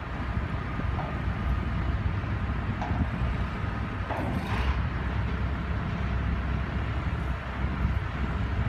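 ZL15 compact wheel loader's diesel engine running steadily as the machine drives, with a brief hiss about four seconds in.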